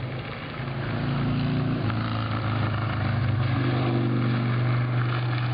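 A motor running with a steady low hum, its pitch dropping slightly about two seconds in.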